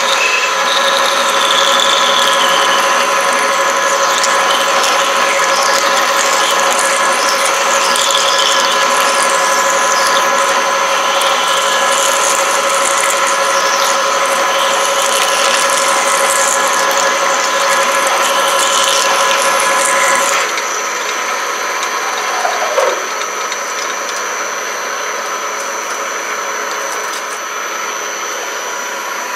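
Harrison M250 lathe running with a steady gear whine while a 7/8-inch twist drill cuts into the spinning workpiece under flood coolant, with scratchy squealing from the cut. About twenty seconds in the cutting stops and the lathe keeps running, quieter.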